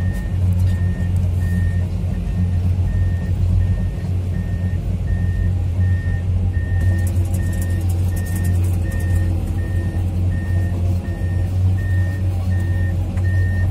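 Komatsu PC210-10M0 hydraulic excavator travelling on its tracks: the diesel engine runs steadily under a loud low hum while the travel alarm beeps at an even pace, about three beeps every two seconds. From about halfway in, scattered sharp clicks join in.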